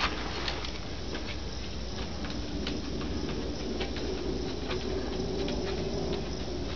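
A small old Lhasa Apso's paws pattering as it walks, with light irregular clicks a few times a second over a steady low background hum.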